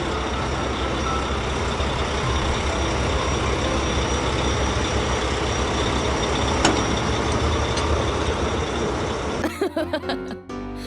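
Animated truck driving sound effect: a steady, dense engine-and-road rumble. About nine and a half seconds in it breaks off into scattered cartoon sounds.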